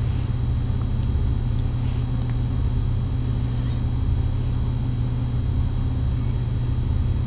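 A steady low hum, with a few faint scattered clicks.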